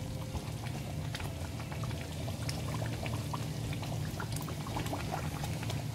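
Rendang sauce of beef, coconut milk and whole potatoes simmering in a wok, bubbling steadily with many small soft pops, over a low steady hum.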